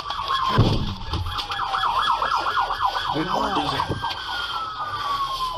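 Police car siren on the dashcam audio: a fast yelp warbling several times a second, then a slow wail gliding down in pitch near the end.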